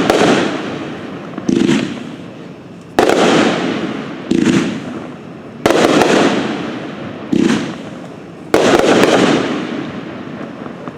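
Red Rhino Cherry Drop firework cake firing shot after shot: sharp bangs about every second and a half, larger ones alternating with smaller ones, each trailing off over a second or so.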